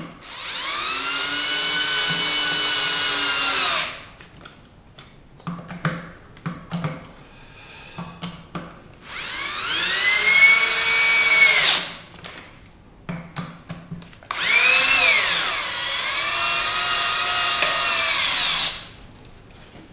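Cordless drill/driver running in three bursts of a few seconds each, driving the bolts into the cylinder head of an oil-free air compressor pump: the motor whine rises as it spins up and falls away as it stops. Clicks and knocks of the bit and tool being handled come between the runs.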